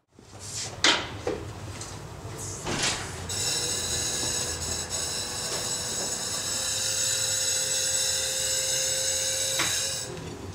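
Two-post hydraulic car lift lowering a Jeep: a couple of clicks, then a steady hissing whine for about six seconds as it descends, cutting off suddenly near the end when the lowering stops.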